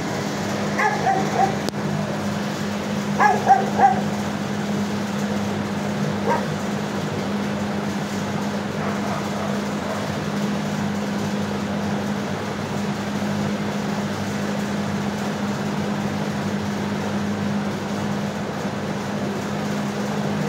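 Shelter dogs barking from the kennels: a couple of short barks about a second in, a quick run of three around three and a half seconds, and one more near six seconds. A steady low hum runs under them.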